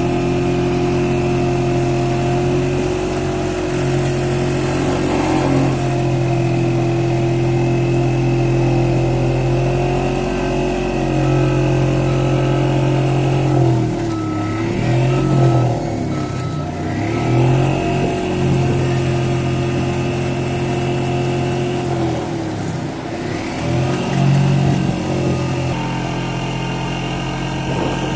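Excavator-mounted vibratory pile hammer running while it drives a steel pile, a loud steady hum over the excavator's diesel engine. Its pitch sags and recovers twice around the middle, the hammer slowing under load and speeding up again.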